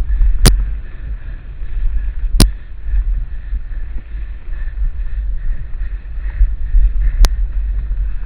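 Steady low wind rumble and bumping on a camera carried on a mountain bike riding a trail, with three sharp knocks: one about half a second in, another about two and a half seconds in, and a third near the end.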